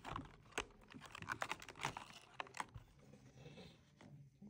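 Clear plastic blister packaging crackling and clicking as a small multi-tool is worked out of it. Quick, irregular small clicks, thinning out about three seconds in.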